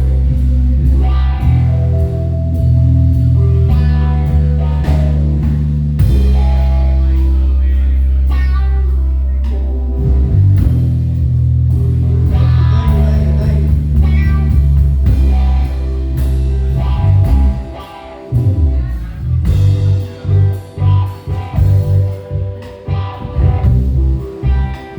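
Live band playing an instrumental passage with electric bass, drums, keyboard and guitar, the bass notes heavy and sustained. About eighteen seconds in the music drops briefly and comes back as a choppier, stop-start groove.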